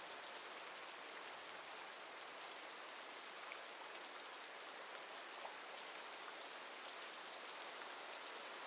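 Steady rain falling, a soft even hiss with occasional faint drop ticks.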